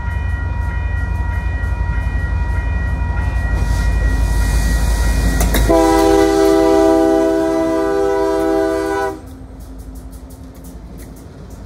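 CP SD30C-ECO diesel locomotive's horn blowing as the lead unit approaches and passes at close range, over a heavy engine rumble. The horn drops in pitch as the locomotive goes by about six seconds in and cuts off about nine seconds in. After that the quieter sound of freight cars rolling past, with faint wheel clicks, remains.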